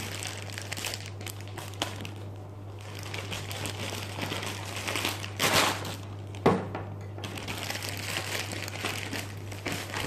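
Plastic packaging crinkling and rustling as a mailed parcel is opened and unwrapped, with a few louder crackles past the middle. A steady low hum runs underneath.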